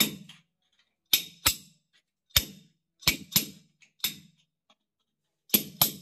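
Steel adjustable wrench clanking against a metal pipe fitting in the wall: about nine sharp metallic knocks at uneven intervals, some in quick pairs, each ringing briefly.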